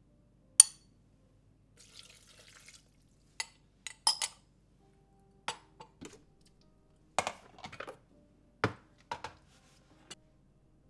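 Dishes and kitchen utensils clinking and knocking, about eight sharp separate strikes, with a short soft hiss about two seconds in.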